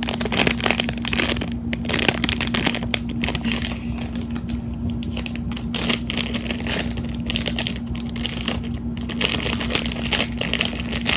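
Plastic packaging crinkling and crackling as a packaged foam squishy toy is handled and opened, with many quick irregular crackles.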